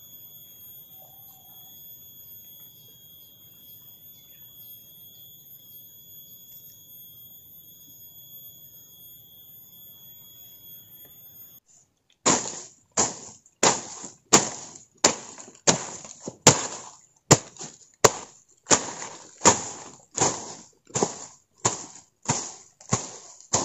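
A faint steady high-pitched whine for about the first half. Then, after a sudden change about halfway in, a long-handled tool chops repeatedly into weeds and soil, with sharp strikes coming about twice a second.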